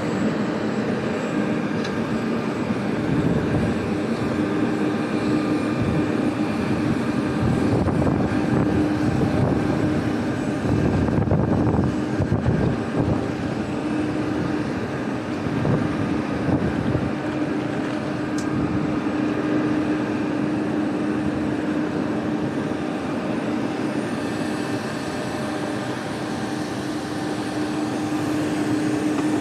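Steady drone of jet airliners and their equipment on an airport apron: a constant hum over a rushing background, with no break.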